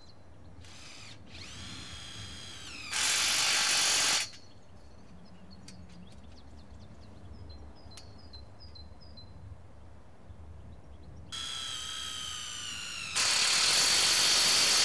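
Cordless drill driver with a socket tightening the nuts on polytunnel P-clip bolts, run twice. Each time a motor whine gives way to a louder rattling as the nut draws tight.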